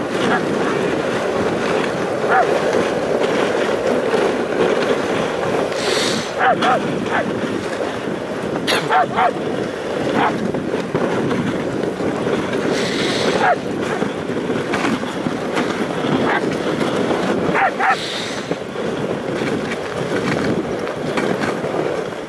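Dog sled running over packed snow: the runners make a steady grinding hiss, and the team of huskies gives a few short yelps now and then.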